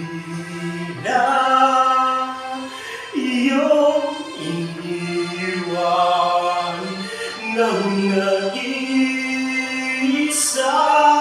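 A man singing with great feeling, holding long notes one after another.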